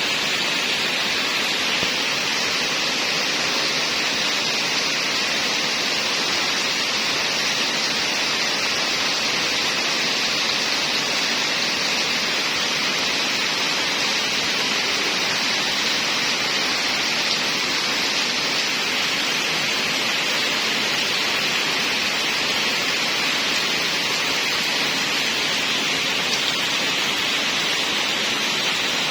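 Heavy rain falling steadily, an unbroken even hiss with no separate drops or thunder.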